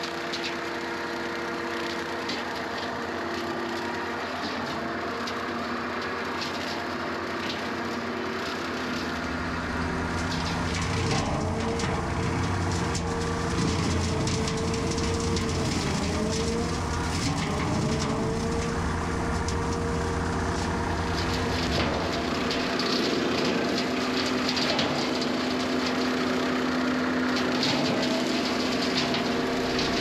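Skid steer running a hydraulic Bigfoot brush cutter through brush and small trees. The engine runs steadily. From about nine seconds in it gets louder and its pitch dips and recovers as the cutter takes load, with scattered cracks of wood being cut.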